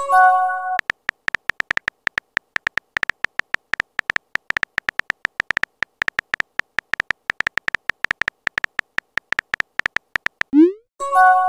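Texting-app sound effects: rapid, irregular keyboard tap clicks, several a second, as a message is typed. A short message chime sounds at the start, and near the end a rising swoop is followed by the same chime as a message is sent.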